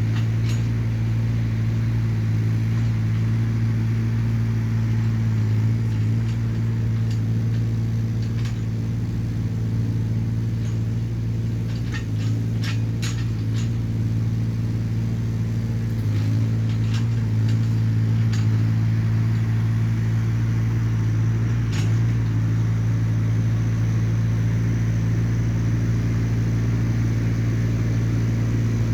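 Small Hyundai excavator's diesel engine running steadily, with scattered sharp clicks and knocks, several of them close together midway through.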